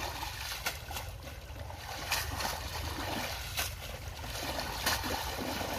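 Muddy shallow water sloshing and splashing as a fishing net is hauled and worked by hand, with a few sharper splashes about every second and a half.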